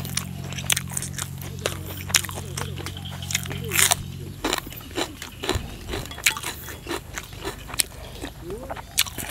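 Close-miked, wet chewing and lip-smacking of a man eating bite-sized chunks of raw beef with bitter bile dipping sauce: many irregular sharp mouth clicks. A steady low hum runs under it and stops about halfway through.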